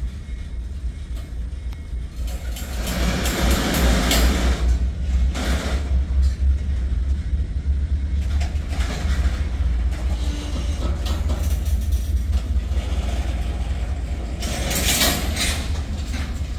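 Freight cars of a Norfolk Southern manifest train rolling past at a street crossing: a steady low rumble with two louder stretches of wheel and rail noise, a few seconds in and again near the end.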